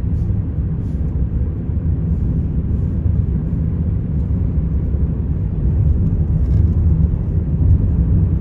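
Steady low road and tyre rumble inside the cabin of a Tesla Cybertruck driving at speed. The truck is electric, so no engine note is heard, only the rumble of the tyres on the road, which swells slightly near the end.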